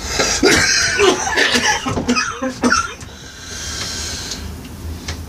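A man coughing hard several times in a row after a drag on a joint, with a breathy hiss of an exhale after about three seconds.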